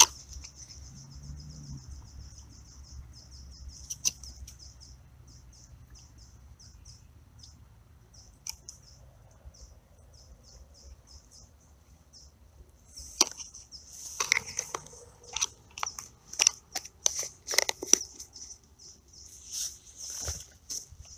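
A small plastic bait container is handled and opened by hand, giving a run of sharp clicks and rattles starting about two-thirds of the way in. Behind it, a steady high-pitched chirping repeats a few times a second.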